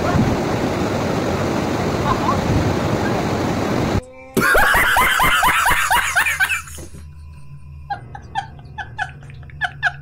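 Steady rush of waterfall water. It cuts off abruptly about four seconds in, and a burst of rapid laughter follows, then a run of short high blips at about three a second.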